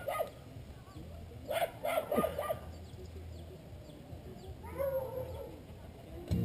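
A dog barking, with a quick run of four or five barks about two seconds in and another call near five seconds.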